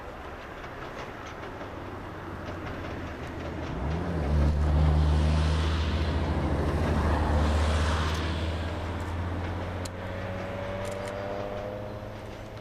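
Narrow-gauge steam locomotive approaching with a train of coaches. About four seconds in its sound swells into a low steady drone with hissing, then eases off, and a thin high squeal rises near the end.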